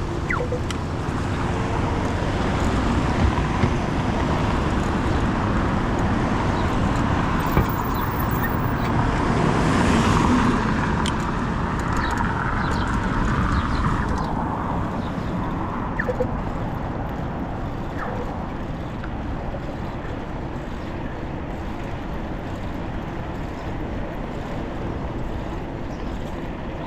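Road traffic noise: cars running past, one passing close and louder about ten seconds in, then fading.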